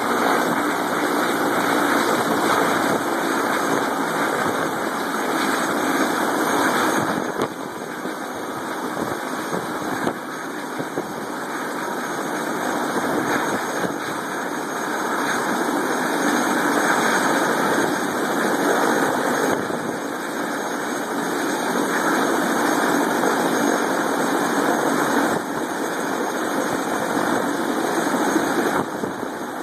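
Eurocopter AS350 Astar helicopter running on the ground after landing, its turbine engine and turning main and tail rotors making a steady rushing noise.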